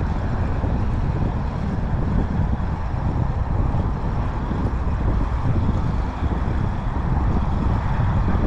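Wind buffeting the microphone: a steady, gusty low rumble with no distinct events.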